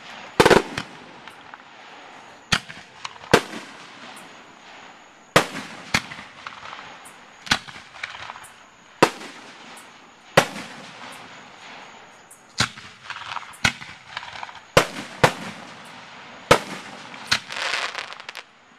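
Aerial fireworks shells bursting: sharp bangs every second or two, about a dozen in all, each trailing off in echo. Between the bangs there is crackling from the glittering crackle stars, thickest near the end.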